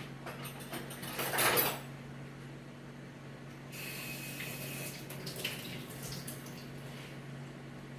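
Kitchen utensils clattering, loudest about a second and a half in, then a tap running for about three seconds.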